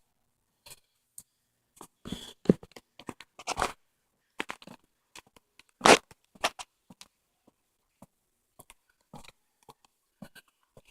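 Handling noise on the recording device: scattered scrapes, rustles and clicks, with one louder knock about six seconds in.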